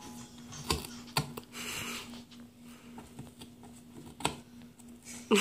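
Dogo Argentino puppy biting and chewing at the edge of a cardboard box: scattered sharp crunches and clicks of cardboard with a brief papery rustle, and a louder short sliding sound right at the end.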